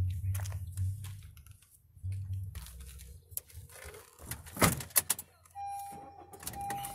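A 2015 Honda Civic's trunk lid being shut, with a few sharp thuds about halfway through. Near the end the car's electronic warning chime starts, a steady tone with short breaks.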